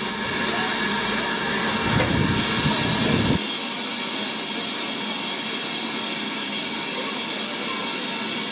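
Standing BR Standard Class 4 4-6-0 steam locomotive hissing steadily as steam escapes beside its wheels, with a low rumble underneath that cuts off suddenly about three and a half seconds in.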